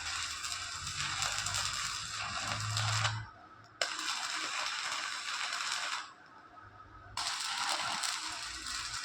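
Electric arc welding: the arc crackles and sizzles steadily, cutting out twice, briefly about three seconds in and for about a second at six seconds, then striking again each time.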